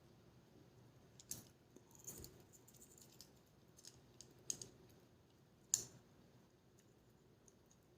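Faint, scattered small clicks and taps of a GoPro Hero 5 Black's parts and small tools being handled during a hand repair, about half a dozen, the sharpest one about three-quarters of the way through.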